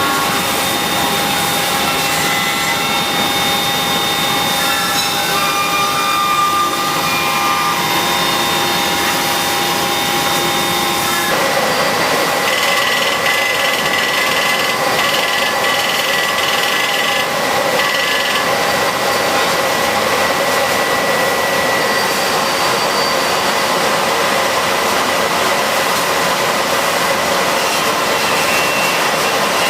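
Metal-cutting machines in a production cell running: a dense steady hiss with several steady whining tones. The tones change abruptly about eleven seconds in.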